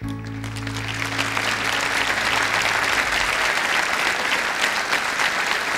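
Theatre audience applauding as the song ends, a dense steady clapping that starts all at once. Under it, the last guitar chord rings on and dies away after about three seconds.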